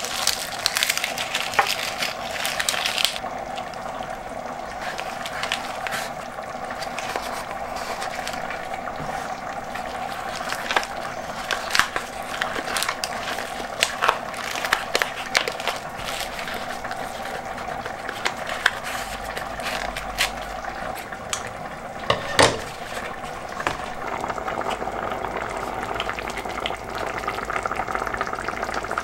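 Thick bolognese meat sauce simmering in a pot, with a steady low bubbling and scattered pops. For the first few seconds there is a light rustle of herbs and leaf being handled, and there is a sharp tap about two-thirds of the way through.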